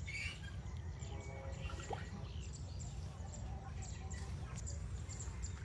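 Quiet rural garden ambience: a low steady rumble with faint bird chirps here and there.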